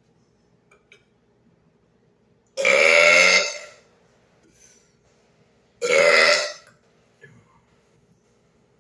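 A man burping loudly on purpose, twice: two long, pitched burps of about a second each, the second coming about three seconds after the first.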